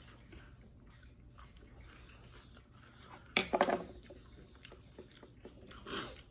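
Close crunchy chewing and biting of a fried shrimp-and-taro cake wrapped in lettuce and herbs, heard as many small crunches. A brief voice-like sound about three and a half seconds in is the loudest thing.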